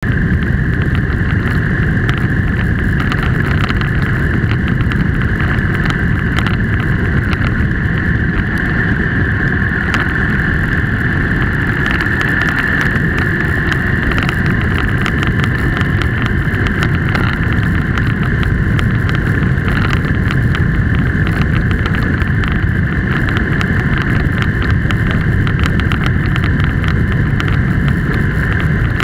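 Steady driving noise of a vehicle on the move: engine and tyre drone with some wind on the microphone, heard from a camera mounted on the vehicle.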